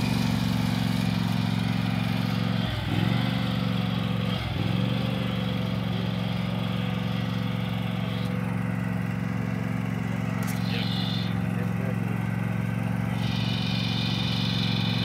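Riding lawn tractor's small engine running steadily as it is driven slowly, its pitch dipping briefly twice in the first five seconds.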